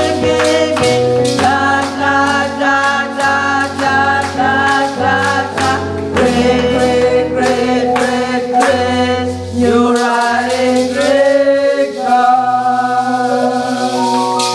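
Church choir singing a gospel praise song over band accompaniment, with a bass line and a steady beat.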